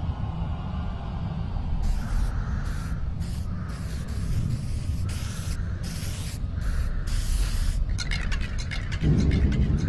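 Repeated short bursts of hissing, like spray or released air, over a steady low rumble, starting about two seconds in. Near the end comes a quick run of short clicks, then the low rumble swells louder.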